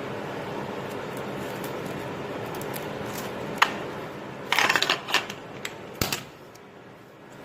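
A sharp metallic click, then a short burst of clattering and a few more clicks, over a steady hum that fades out near the end.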